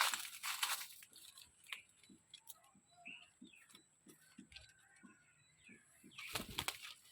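Parrot making a few short, faint chirps between two louder harsh, rustling bursts, one at the start and one about six seconds in, with soft scattered ticks.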